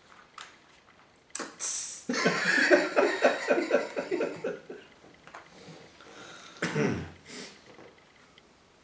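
Two men laughing hard: a sharp breathy burst, then a rhythmic run of laughs lasting a couple of seconds, and one more short loud burst of voice about seven seconds in.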